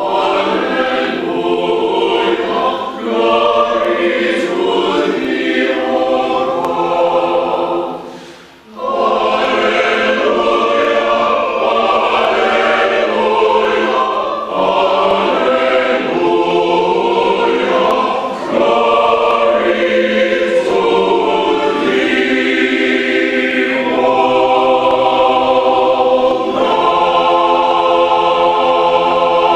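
A choir singing, many voices together. The singing breaks off briefly about eight and a half seconds in, then resumes.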